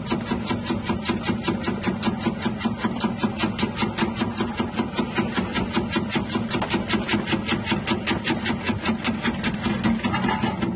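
Electric tuber chip-slicing machine running, its 180-watt motor humming steadily under a rapid, even clatter of about six strokes a second as the blade disc cuts wavy slices.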